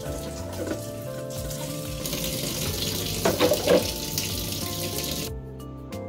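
Kitchen faucet running water onto clear acrylic organizers being rinsed in a stainless steel sink, with the splashing loudest a little after the middle; the water sound cuts off suddenly near the end. Soft background music plays throughout.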